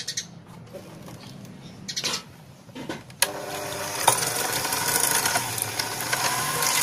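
Electric hand mixer switching on with a click about three seconds in and running steadily, its beaters creaming butter and sugar in a glass bowl. Before it, a few soft hissing pours of sugar into the bowl.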